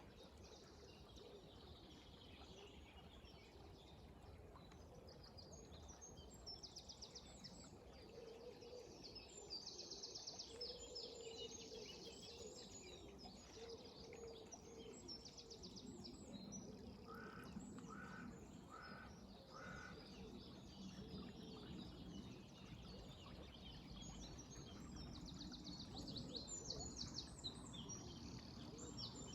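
Several songbirds singing in a dawn chorus, with high, rapid trills and chirps throughout, and a row of four short, evenly spaced notes about two-thirds of the way through. Underneath is a faint, steady background of river water.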